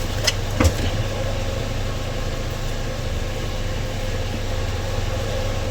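A steady low machine hum, with two light clicks or knocks in the first second.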